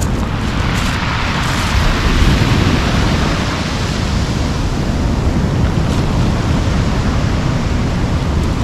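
Ocean surf breaking and washing up a cobble beach: a steady hiss of surf, with a wave surging in about a second in. A heavy low rumble of wind on the microphone runs underneath.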